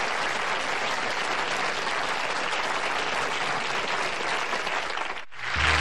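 Studio audience applauding steadily. The applause cuts off about five seconds in, and music starts just after.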